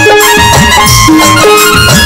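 Instrumental break in a live Rajasthani folk bhajan: a melody of held notes over a dholak and an electronic drum pad played with sticks. The low drum strokes slide up in pitch, with a steady rhythm of high ticks on top.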